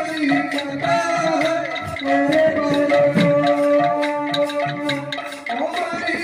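Sambalpuri kirtan music: a melody held on steady notes that step up and down, over a hand drum and sharp percussion strokes keeping an even beat.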